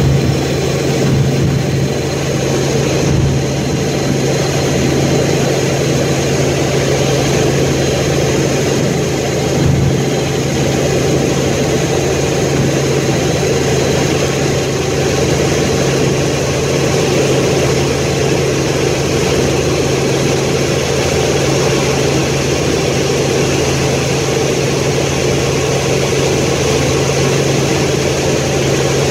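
Helicopter in level flight heard from on board: a steady, unbroken drone of engine and rotor, a constant low hum under a broad rushing noise.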